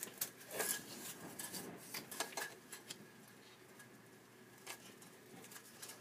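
Faint wind blowing against the house during a storm, with scattered light clicks and taps, most of them in the first two seconds.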